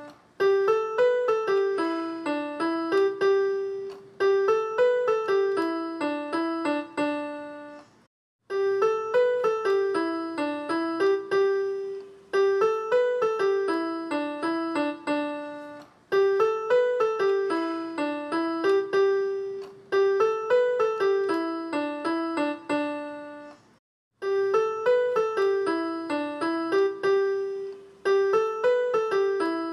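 Background music: a short piano melody phrase repeated over and over, about once every four seconds, breaking off briefly twice.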